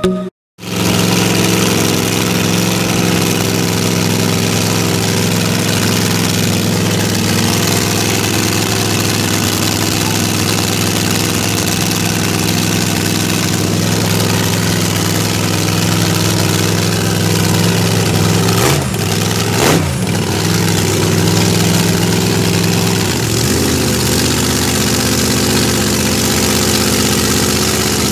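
Drag-racing car's engine idling loudly and steadily, with two quick revs about two-thirds of the way through.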